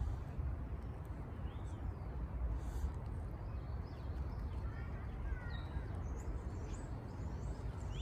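A few faint, short, high bird chirps, mostly bunched about halfway through, over a steady low rumble.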